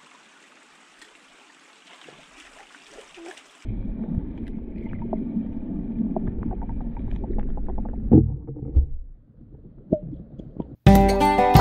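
Creek water heard through an underwater camera: a muffled low rumble and gurgle with scattered small clicks, starting suddenly after a few seconds of faint hiss and dying away near the end. Acoustic guitar music comes in just before the end.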